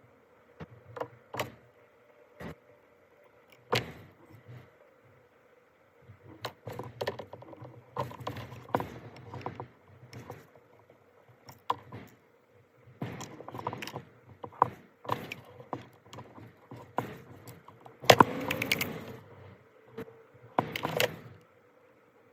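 Irregular clicks, knocks and metallic rattles of parts and tools being handled, with a louder rattle about three-quarters of the way through, over a faint steady hum.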